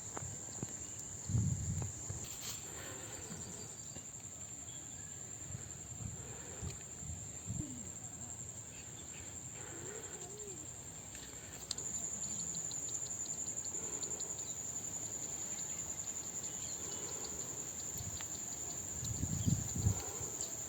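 Insects chirring in a steady, high-pitched drone that grows a little louder just past halfway, with faint low knocks underneath.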